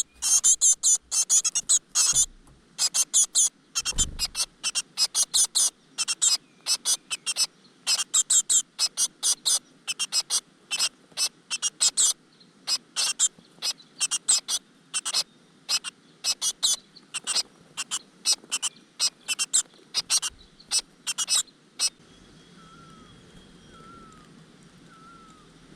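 Great tit nestlings begging: a rapid, dense stream of short high-pitched calls that stops abruptly near the end, leaving a few faint soft chirps.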